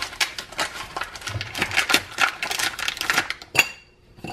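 A bag of baking soda being handled on a kitchen counter: dense, irregular crinkling and small clicks, ending with one sharp click about three and a half seconds in.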